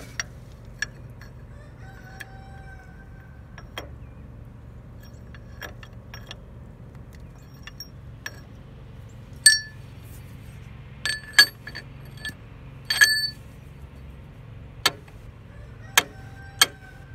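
Scattered sharp, ringing metal-on-metal clinks as a steel bolt and the disc harrow's steel bearing bracket are handled and knocked together while the bolt is fitted through the bracket's hole. The clinks are faint at first and louder and more frequent in the second half, over a steady low hum.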